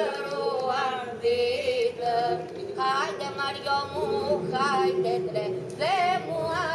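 Several women singing unaccompanied. A low held note runs underneath while a higher voice slides up and down above it in long wavering phrases.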